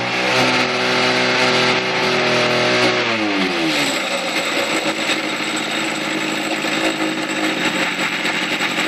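Two-stroke engine of a Husqvarna chainsaw running steadily at full throttle, then its pitch falls away over about a second as it winds down. A steady rushing noise carries on after the engine tone is gone.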